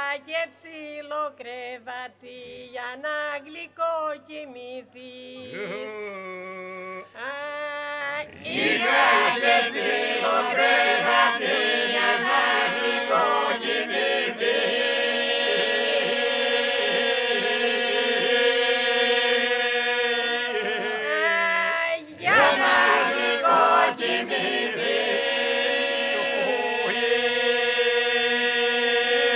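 Epirote polyphonic folk singing by a group of older men and women. A woman sings the lead line alone with wavering ornaments, and about eight seconds in the rest of the group joins with a sustained drone under her. The singing breaks off briefly about two-thirds of the way through, then the lead and the drone go on.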